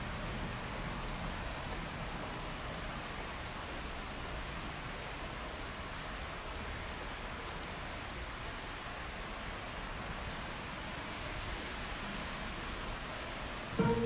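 Steady, even hiss of background noise. Near the end a station announcement chime sets in with a held tone.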